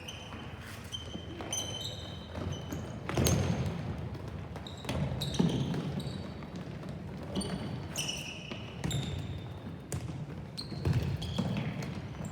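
Sneakers squeaking in short high chirps on a gym floor, with several thuds of a ball.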